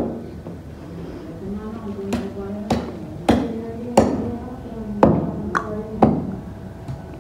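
Heavy cleaver chopping chicken feet on a wooden log set on a stone floor: about eight sharp chops, one at the start and then a run of them spaced about half a second to a second apart.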